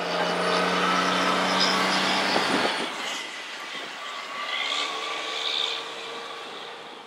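Heavy truck noise: a broad, steady drone with a held tone over it for the first two and a half seconds, swelling again a few seconds later and fading out near the end.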